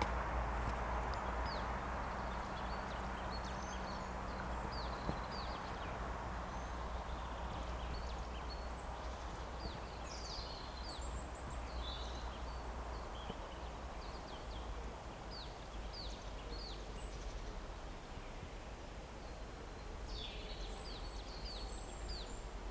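Songbirds singing: many short, high chirps and whistles overlapping throughout, over a steady background hiss that slowly fades and a low rumble.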